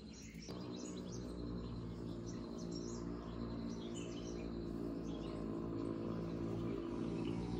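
Background music of held, droning tones fading in about half a second in and growing louder, over birds chirping.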